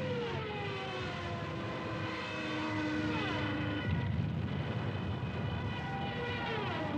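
Propeller aircraft flying past one after another, each engine note dropping in pitch as it goes by: three passes, about a second in, around three seconds in and near the end, over a steady rumble.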